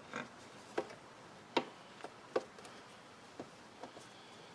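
Irregular light clicks and taps of a screwdriver and small screw as a screw is being worked into place during reassembly, about eight in all.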